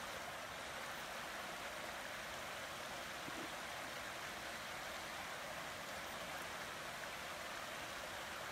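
Shallow creek running over rocks, a steady rushing hiss of water.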